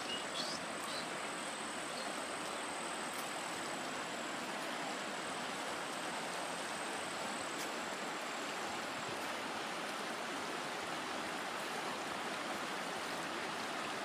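River water rushing over rapids, a steady even rush.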